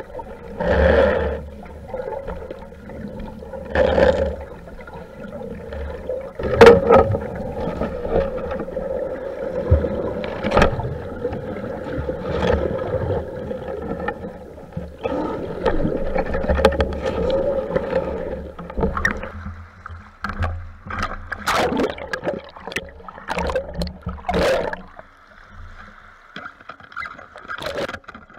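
Muffled underwater water noise picked up through a speargun-mounted camera's waterproof housing, with irregular knocks and bumps as the diver swims with a speared striped bass.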